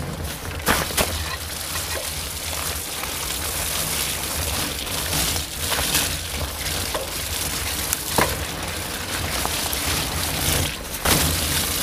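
Tyres rolling fast over a wet forest trail with a steady rushing noise, broken by sharp knocks and rattles as the ride hits bumps, about five times.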